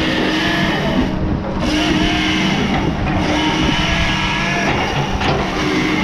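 Tigercat 234 log loader's diesel engine running steadily, with hydraulic whine that shifts in pitch as the boom swings and lowers the grapple.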